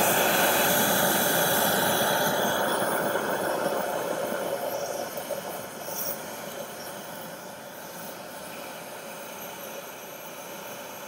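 High-pressure propane wok burner running with a steady rushing noise of gas and flame. It is loudest at first and gradually grows quieter over the first six seconds or so, then holds steady.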